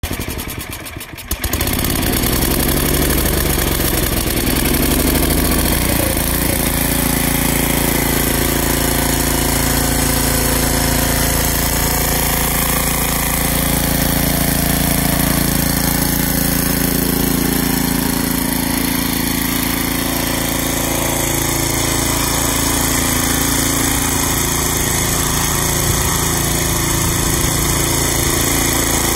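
Toro 1332 PowerShift snow blower's 13-horsepower single-cylinder engine running. It speeds up over the first few seconds, then holds a steady speed.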